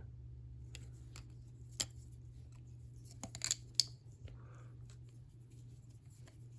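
Squid Industries Squiddy balisong being flipped: scattered metallic clicks and clacks from the handles swinging and closing on the blade, loudest about two seconds in, with a quick run of clicks a little after three seconds. A steady low hum lies underneath.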